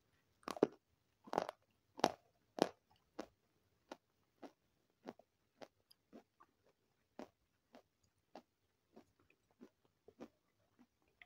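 A person biting into and chewing crunchy food: a few loud crunching bites in the first three seconds, then steady chewing crunches, about three every two seconds, growing softer.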